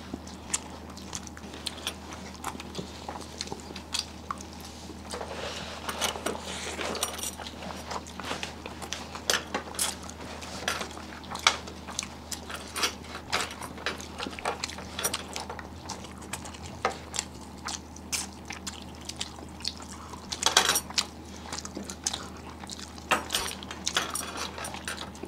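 Eating sounds at a meal: irregular clicks and clinks of plates and utensils as food is handled and chewed, with a lemon being squeezed over the food.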